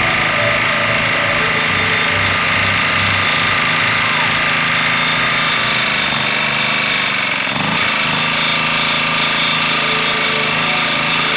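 Small engine of a Honda 1 kW portable generator running at a steady speed, heard up close.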